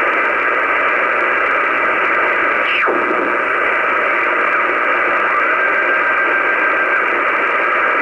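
Shortwave receiver hiss and static between voice reports on an aviation weather broadcast, steady and cut off above the radio's narrow audio band. A brief falling whistle comes about three seconds in, and a faint steady tone comes in the last third.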